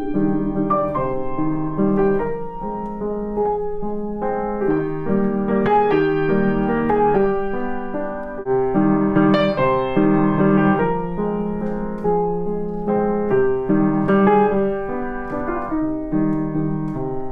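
Background solo piano music, a steady flow of notes and chords.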